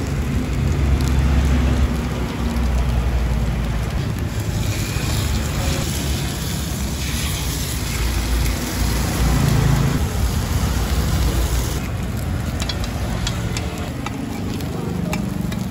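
Oil and batter sizzling in a hot dimpled cast pastry pan over a steady low rumble. Near the end come light clicks of bamboo sticks and a metal spoon against the pan as the cakes are turned.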